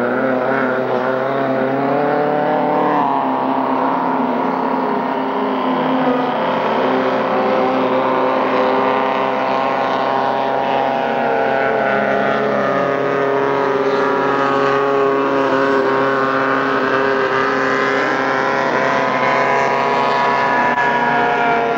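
Three-point hydroplane racing boats' engines screaming at full throttle, several at once. Their pitch rises and falls as the boats pass and corner.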